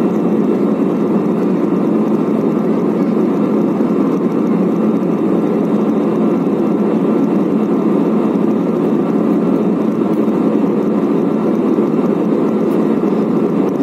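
Steady cabin noise inside an Airbus A320-family jet airliner in flight: an even rush of engine and airflow noise with a faint steady hum, unchanging throughout.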